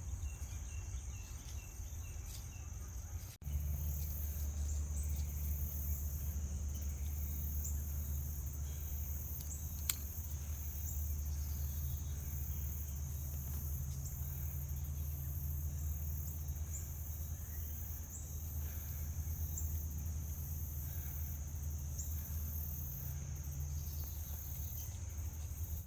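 Insects shrilling outdoors in one steady, unbroken high note, over a low steady rumble on the microphone that gets abruptly louder about three and a half seconds in.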